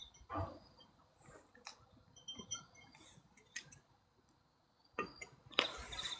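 A few faint clinks and knocks of a glass bottle being set on a concrete floor, then a brief louder noise about five seconds in.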